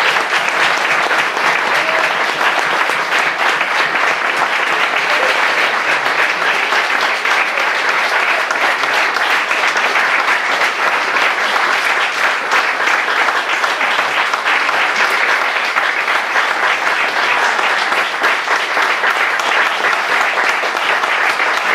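Audience applauding: sustained, dense clapping from a large crowd that holds steady throughout, with a few voices in it.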